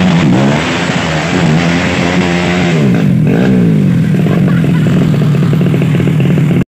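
Dirt bike engine revving hard as the bike struggles up a muddy climb. The pitch swings up and down a few times around the middle, then holds steady and high.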